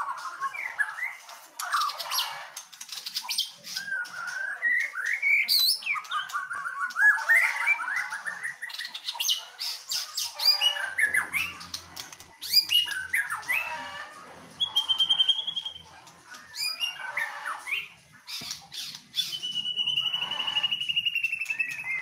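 White-rumped shama singing a varied song of loud whistles, pitch glides and quick chattering notes, with a short held whistle midway and a long, slightly falling held whistle near the end.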